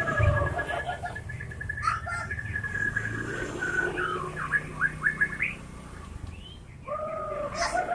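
White-rumped shama (murai batu) singing. It opens with a fast run of rapidly repeated high notes, moves into a string of quick sweeping whistles, and near the end gives lower slurred phrases, over a steady low hum.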